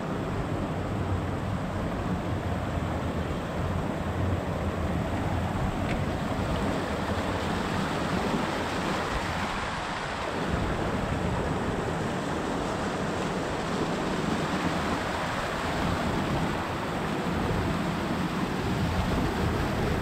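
Small mountain stream rushing steadily over rocks and gravel, with a low rumble of wind on the microphone.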